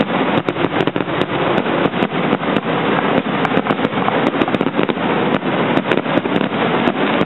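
Fireworks going off in a dense, continuous crackle of sharp cracks and pops, several a second, with no pause.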